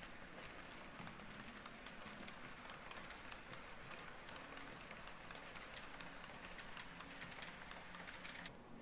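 Model railway freight wagons rolling past on the track: a faint, steady rattle of small wheels with many quick clicks, which cuts off suddenly near the end as the last wagon goes by.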